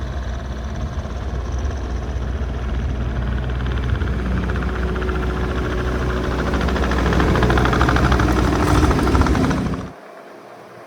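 Diesel engine of a Case TR310B compact track loader running and growing louder over several seconds, then cutting off suddenly near the end.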